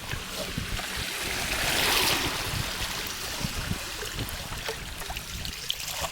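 River water rushing and splashing, with a surge of splashing about two seconds in and scattered small knocks.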